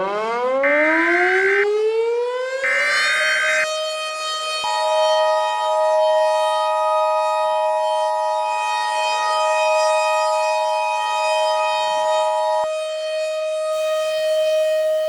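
A civil-defense-style siren winds up from a low pitch to a steady high wail. In the first few seconds it is overlaid by three short screeching data bursts of an Emergency Alert System header. From about four seconds in, the EAS two-tone attention signal sounds over the held siren and cuts off sharply about twelve seconds in, while the siren keeps sounding.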